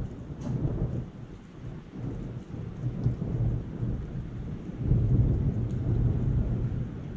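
Thunder rumbling low and rolling, swelling again about five seconds in, with rain falling steadily underneath.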